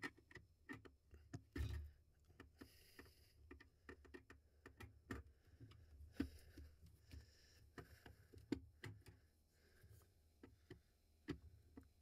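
Faint, irregular small clicks and taps of a screwdriver working the terminal screws of a duct smoke detector's terminal block, with light rustling of wires being handled.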